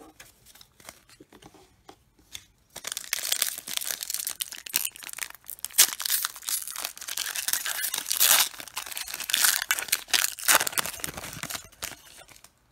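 Foil wrapper of a Panini Contenders football card pack being torn open and crinkled by hand. The sound starts about three seconds in, after a few faint ticks, and runs as dense crackling until near the end.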